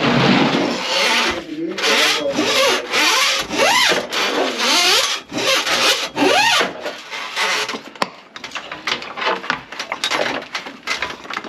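Repeated scraping and rasping strokes in the grease-clogged kitchen sink drain, about one a second, with a few short squeaks that rise and fall in pitch. After about seven seconds these give way to lighter, quick scratching.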